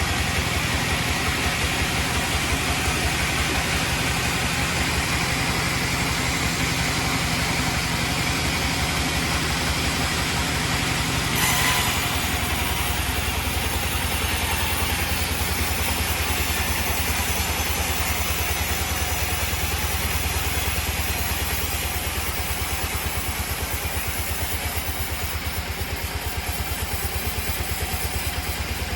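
Sawmill engine running steadily with a low, even hum. About eleven seconds in there is a brief louder moment, after which the hum settles slightly lower.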